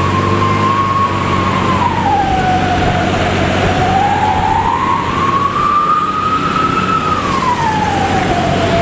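Bus fitted with a modified 'serigala' (wolf) exhaust, howling: one long wavering tone that falls, rises again and falls near the end, over a steady low engine drone.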